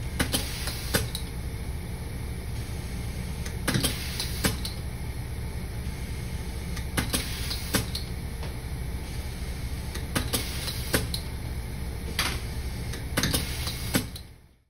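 Automatic screw feeder and auto-feed electric screwdriver running: a steady low machine hum with pairs of sharp clicks about every three seconds as screws are fed and driven. Fades out near the end.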